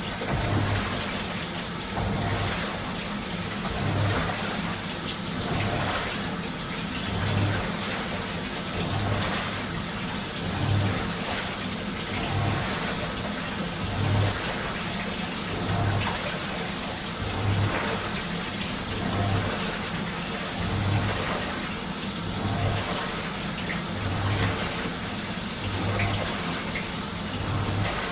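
Washing machine running a strong wash cycle: water sloshing as the drum tumbles the laundry, with a low surge about every second and a half to two seconds.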